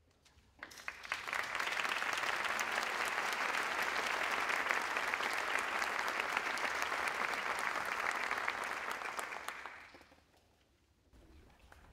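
Audience applauding, building up over the first second or so, holding steady, then dying away near the end.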